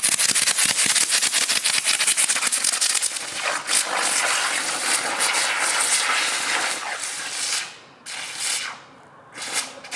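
Solid-fuel rocket motor of a small 3D-printed model hydroplane burning with a harsh, crackling hiss. It dies away about seven and a half seconds in, followed by a couple of short hissing bursts near the end.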